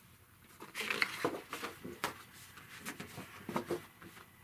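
Sheets of drawing paper being handled and pulled away against a picture frame: a run of light paper rustles and taps, starting about a second in.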